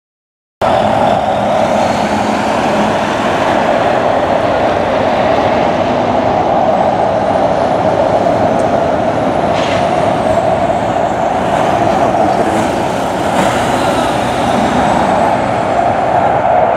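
Twin jet engines of a Blue Angels F/A-18 Hornet running at high power: a loud, steady jet noise that starts about half a second in and swells near the end as the jet draws closer.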